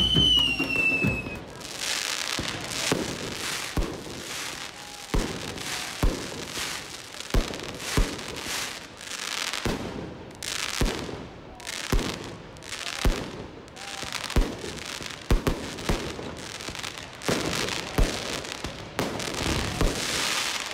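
Fireworks display: sharp bangs about once a second, each followed by a hiss and crackle as shells burst. A short falling whistle comes at the very start.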